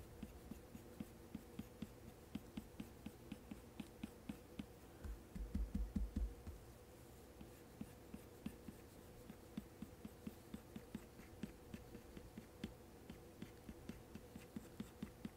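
Apple Pencil tip tapping and flicking across an iPad Pro's matte screen protector in short hair strokes: a steady run of light ticks, several a second. A few dull low thumps come about five to six seconds in and are the loudest sound.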